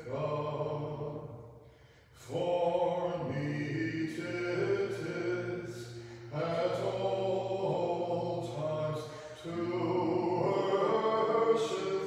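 Orthodox liturgical chant: voices singing a cappella in sustained phrases, broken by short pauses for breath.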